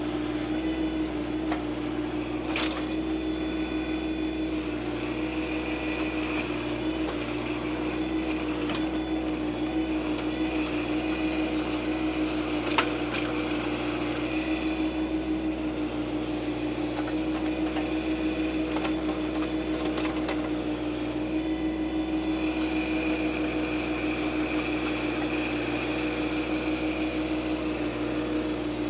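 John Deere 2025R compact tractor's diesel engine running steadily at working speed while its backhoe digs, with an on-and-off higher whine and a few sharp clanks.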